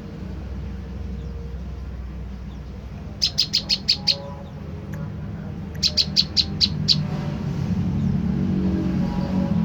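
Olive-backed tailorbird (prenjak lumut) calling: two quick series of about six sharp, high notes, the first about three seconds in and the second about six seconds in, over a steady low hum.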